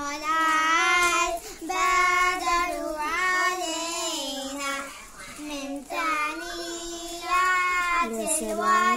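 A song: a high voice singing a slow melody in long held notes that waver in pitch, phrase after phrase.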